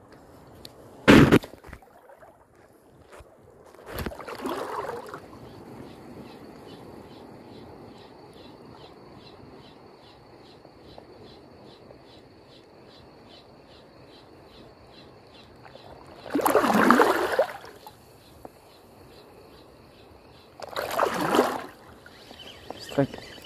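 Ryobi HPX 1000 spinning reel being cranked on a lure retrieve, giving a faint, even ticking about three times a second. A couple of sharp clicks and a short whoosh come in the first five seconds, and two loud rushes of noise cut in about two-thirds of the way through and near the end.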